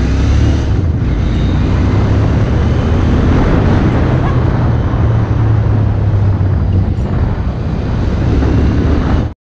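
Royal Enfield GT650's parallel-twin engine running steadily at riding speed, buried under loud wind rushing over the rider's microphone. It cuts off abruptly near the end.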